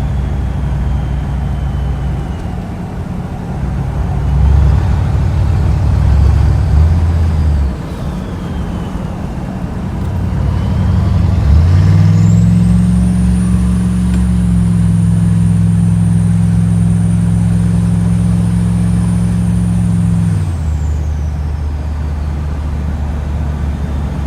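6.5 diesel engine with an S300 turbocharger, revved briefly a few seconds in, then held at high revs for about eight seconds from about halfway. At high revs the turbo gives a high, steady whistle; as the engine drops back to idle, the whistle winds down.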